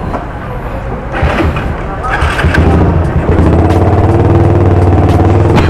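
Motorcycle engine running at a steady note, which comes in strongly about two and a half seconds in after a stretch of irregular, noisier sound.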